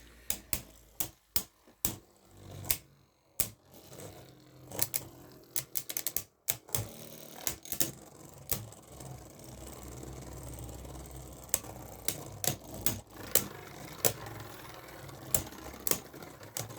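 Beyblade Burst spinning tops battling in a plastic stadium: sharp, irregular clicks and clacks as they hit each other and the walls, with a steady spinning whir in the middle stretch.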